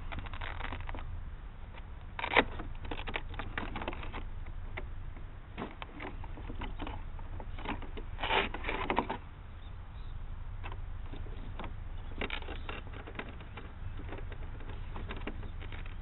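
Hands handling a LiPo battery and its wiring in the hull of a foam RC flying boat: clusters of clicks, scrapes and rustles, with a sharp click a couple of seconds in, over a steady low wind rumble on the microphone.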